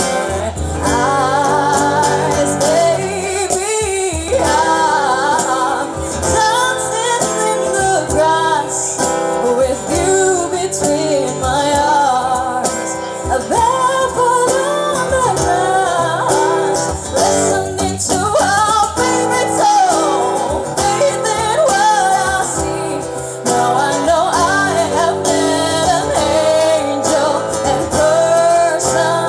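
Background music: a song with a sung melody over instrumental accompaniment.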